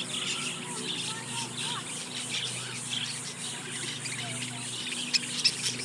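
A flock of small birds chirping and chattering continuously, many overlapping short rising and falling chirps, as at a bird-feeding aviary. Two sharp clicks stand out about five seconds in.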